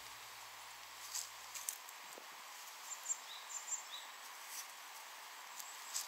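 Faint woodland ambience with scattered soft ticks and two brief high chirps around the middle. The last low notes of background music die away in the first second and a half.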